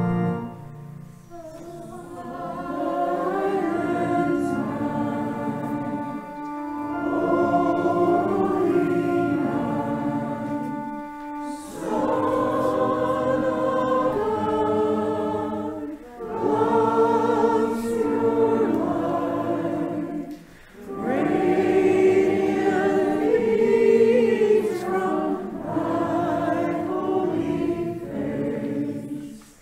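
A congregation of mixed voices singing a hymn together, in phrases a few seconds long with short breaks for breath between them.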